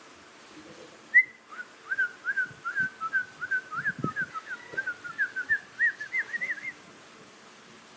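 A quick run of short whistled notes, about three or four a second and wavering slightly up and down in pitch, lasting about five seconds.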